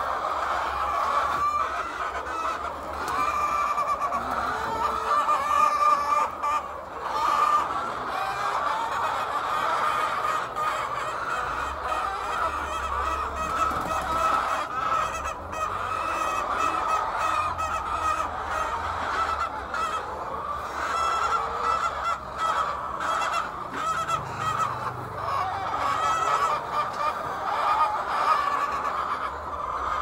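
A flock of hens clucking and calling, many voices overlapping at a steady level.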